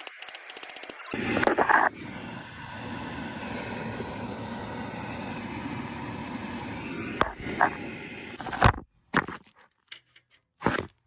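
A ratchet wrench clicking rapidly for about a second, then a steady hiss for about seven seconds that stops suddenly, followed by a few sharp knocks.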